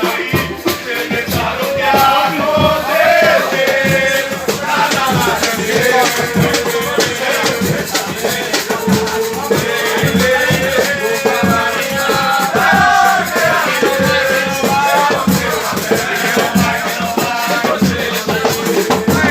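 Music playing, with a fast shaker or maraca-style rattle over a drum beat and a wavering melody line.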